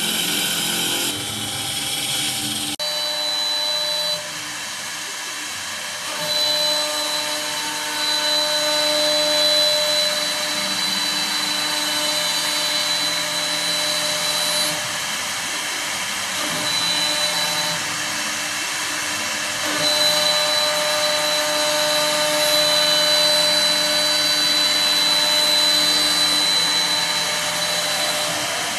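APEX 1512 three-spindle automatic CNC wood turning lathe cutting three baluster blanks at once: the spindles run with a steady whine while the cutters shave the spinning wood. The cutting noise rises and falls as the tools work along the blanks.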